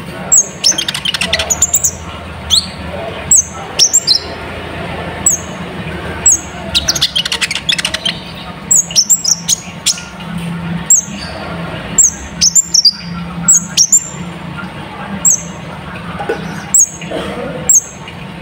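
Sunbird known as kolibri ninja singing a lure song: sharp, high, downward-slurred chips repeated every half second or so, broken by quick rattling trills about a second in and again around seven seconds in, over a steady low hum.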